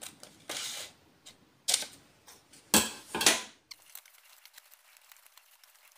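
Printed paper templates being cut out: a few short, crisp cutting and rustling sounds in the first three and a half seconds, the last two the loudest, then only faint ticks.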